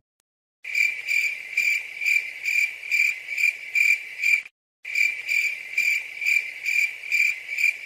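Cricket-chirp sound effect, a high chirp pulsing about twice a second. It is the comedy cue for an awkward silence. It starts about half a second in and cuts to dead silence briefly around the middle.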